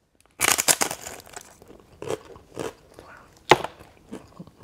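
A crisp corn tostada topped with shrimp ceviche bitten into: a burst of loud crunches, then crunchy chewing, with one sharp crunch about three and a half seconds in.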